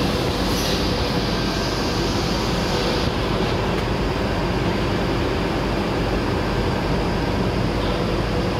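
Steady machine noise of a running polypropylene rope extrusion line with a 120 mm screw extruder: an even, unchanging din with a low hum underneath.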